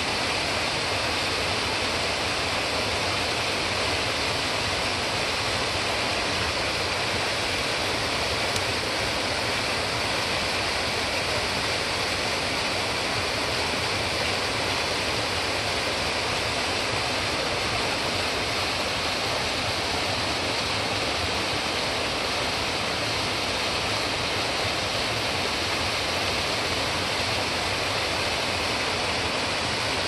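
A small mountain waterfall spilling in several steps over boulders into a pool: a steady rush of falling water with no change.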